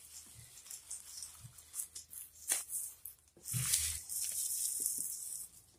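Plastic bag crinkling and rustling as hands press and knead dough through it: scattered crackles at first, then a denser steady rustle from about halfway through that stops just before the end.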